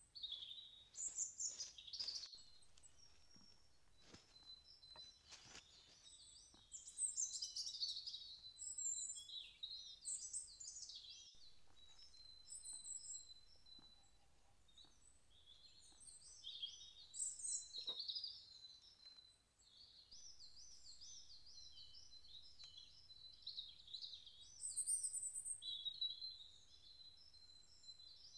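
Several songbirds singing and chirping in high, warbling phrases and rapid trills, over a quiet background with a few faint clicks.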